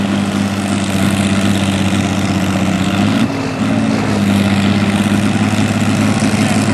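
Antique farm tractor engine running hard and steady while pulling a weight-transfer sled, its note briefly wavering and dipping about three seconds in before settling back.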